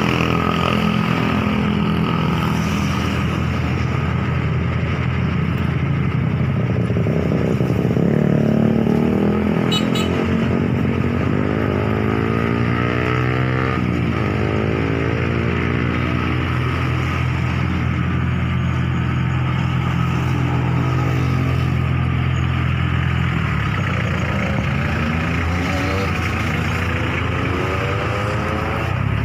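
A vehicle engine running steadily close by, with other vehicles passing on the road.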